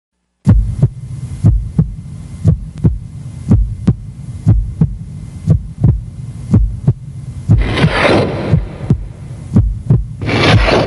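Heartbeat sound effect, a low double beat repeating about once a second, steady throughout after starting about half a second in. Two short hissing noises rise over it, one near the middle and one near the end.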